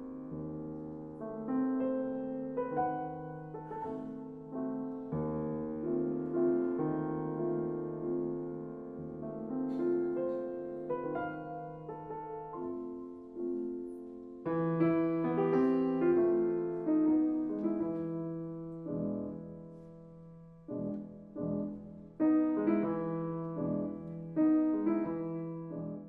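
Background piano music: a solo piano playing a gentle melody over held low notes, growing fuller and louder about halfway through.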